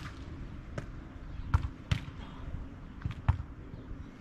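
Volleyball being struck by players' hands and forearms during a beach volleyball rally: a series of about five sharp slaps spread over four seconds, the first the loudest.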